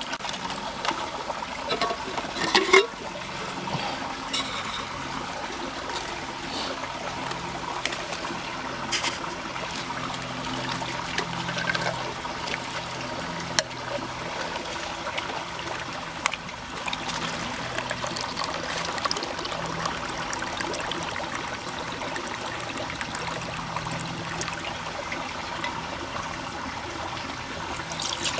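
Small creek waterfall trickling steadily. A few short clicks and knocks of camping gear being handled sound over it, the loudest two to three seconds in.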